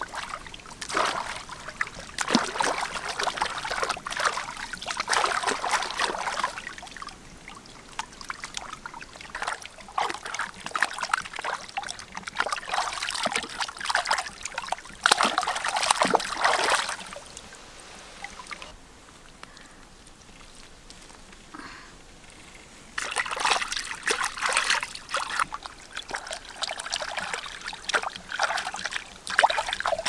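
Hands splashing and swishing in shallow muddy water, washing a banded water snake and pieces of meat. The splashing comes in irregular bouts, with a lull of a few seconds past the middle.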